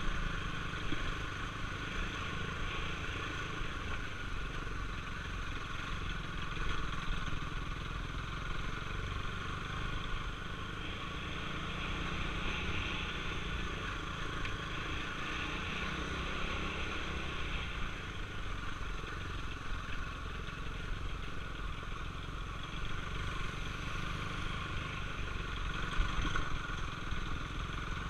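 KTM 390 Duke's single-cylinder engine running steadily at low speed over a rough gravel track, with rattling from the bike over the bumps and a few sharper knocks.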